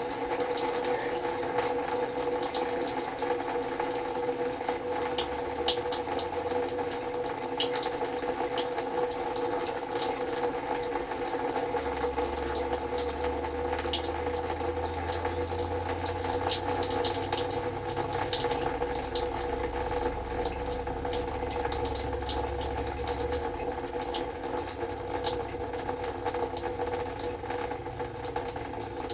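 Water rushing and sputtering out of a faucet into a sink, driven by compressed air forced into a water heater tank to stir up and flush out sediment. A low hum joins for stretches.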